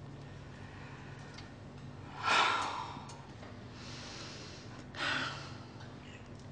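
A person breathing out audibly twice, like sighs, about two seconds in and again about five seconds in, over a faint steady low hum.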